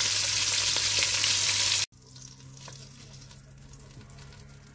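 Marinated pork ribs sizzling loudly in hot olive oil in a pot while being seared at high heat. The sizzle cuts off abruptly about two seconds in, leaving only faint crackling from the oil as the ribs are lifted out.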